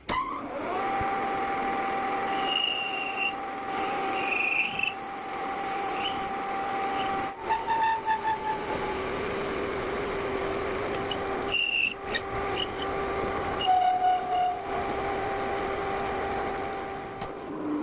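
Manual metal lathe cutting metal, the tool ringing with a steady squeal whose pitch shifts lower about halfway through, with short higher squeaks and a few clicks.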